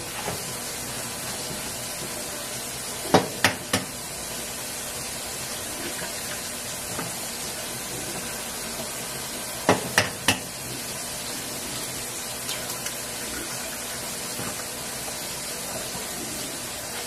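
Eggs being cracked against the rim of a mixing bowl: a quick cluster of three sharp taps about three seconds in and another about ten seconds in, over a steady background hiss.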